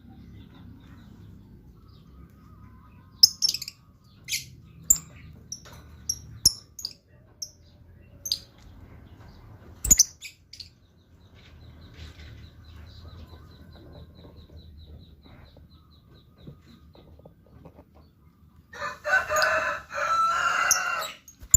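Pet lovebirds calling: sharp, shrill single chirps at irregular intervals, a quiet fast twitter in the middle, then a loud burst of dense chattering calls near the end.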